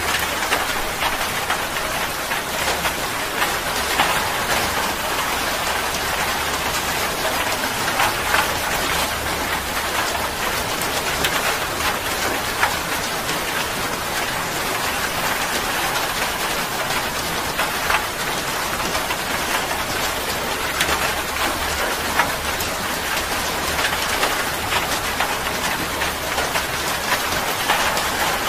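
Heavy rain falling steadily: a dense, even hiss with many scattered sharper drop splashes.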